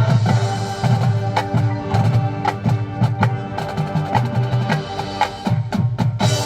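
Marching band playing, with wind instruments holding low sustained notes under many quick percussion strikes.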